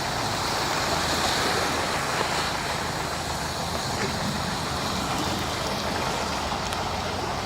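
A motor vehicle's engine running steadily over a constant rush and wash of floodwater, the water pushed into waves by vehicles moving through the flooded street.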